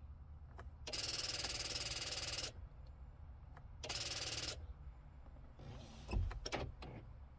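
A Nissan's starter failing to turn the engine on a weak battery: two bursts of rapid chattering, the first about a second and a half long and the second shorter, then a few low knocks near the end.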